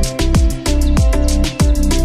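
Background music with a steady beat: deep bass hits that drop sharply in pitch, quick high ticks like hi-hats, and held chords.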